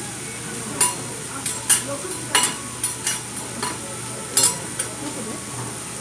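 A steel spatula and knife clacking against a teppan iron griddle: about ten sharp metallic clacks at uneven intervals between about one and five seconds in, over the steady sizzle of steak pieces frying.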